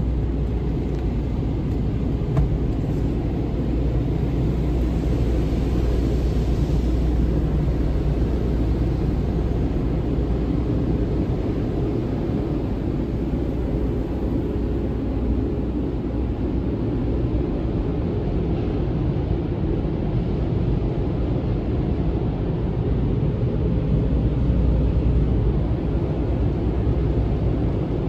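Automatic car wash heard from inside the car: a steady, muffled rumble of water jets and spinning wash brushes striking the body and windshield.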